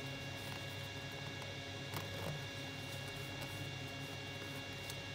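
A sheet of origami paper being folded and pressed by hand: faint scattered crinkles and taps, the clearest about two seconds in, over a steady electrical hum.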